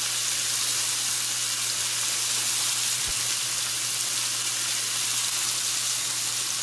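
Shrimp searing in a little oil in a hot nonstick skillet, giving a steady sizzle as they brown and char.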